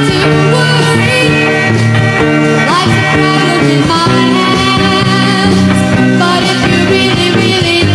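Pop song playing: bass, guitar and drums with a melody line, at a steady loud level.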